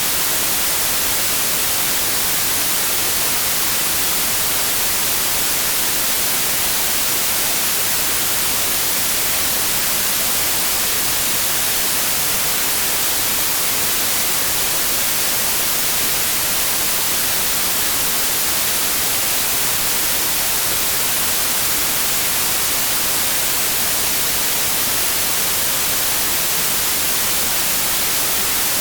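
Steady white noise: an even, unbroken hiss, brightest in the treble.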